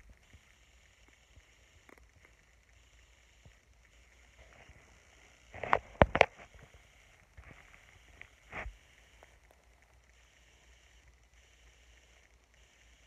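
Mostly quiet room tone, broken about six seconds in by a short cluster of loud bumps and rubbing as the phone's microphone is pressed against skin, with one more brief bump a couple of seconds later.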